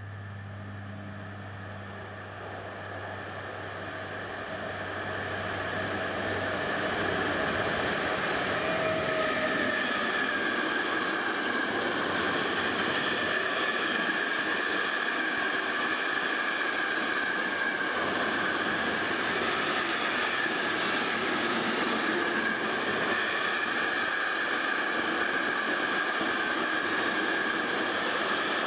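Long container freight train rolling past close by: steady wheel-on-rail rolling noise with a high whine running through it, building up over the first several seconds and then holding steady.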